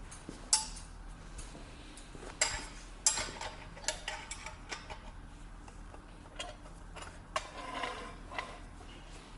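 Irregular metallic clinks and knocks, as of steel parts and tools being handled and set down, with a short ring after the sharper hits.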